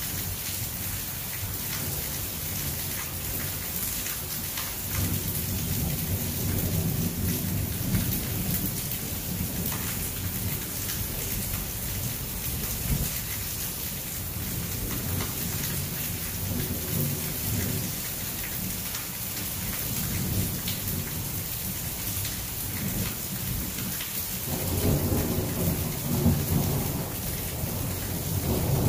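Steady rain hiss with thunder rumbling low several times, the loudest roll building near the end.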